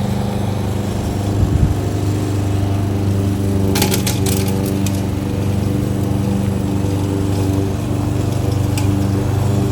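Kohler XT-675 single-cylinder engine on a Yardworks front-wheel-drive push lawn mower running steadily, with a few sharp clicks about four seconds in.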